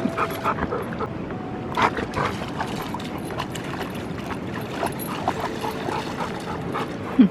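A dog whining in thin, drawn-out whimpers over a steady rush of water from the rapids.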